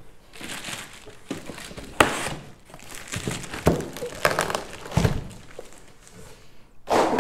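Plastic wrapping around a network switch crinkling and rustling as it is handled and pulled off, with a sharp knock about two seconds in and a dull thump about five seconds in.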